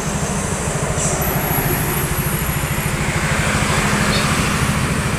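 Tour bus diesel engine running close by: a steady, rapid low throb that swells slightly as the bus draws nearer.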